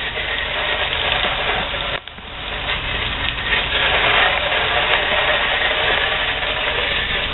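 Pressure washer running, its engine rumbling under a steady hiss of spray. The sound drops briefly about two seconds in, then builds back up.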